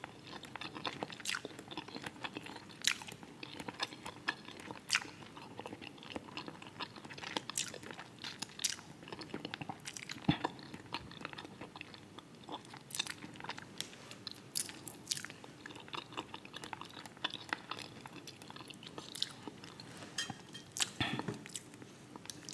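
Close-miked chewing of fried fish: soft wet chewing with many irregular sharp mouth clicks and smacks.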